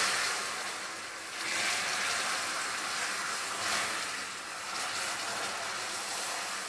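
Caramelized sugar that has just been thinned with water boiling and hissing steadily in a steel pan on a gas burner.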